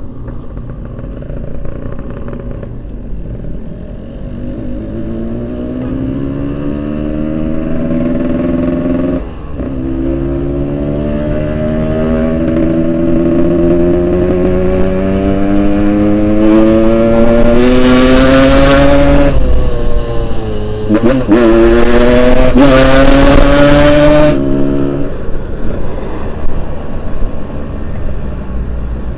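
Yamaha RX-King 135cc two-stroke single-cylinder motorcycle engine under way, its revs climbing through the gears with a brief dip at each of two shifts. Near the end the throttle closes and the revs fall away.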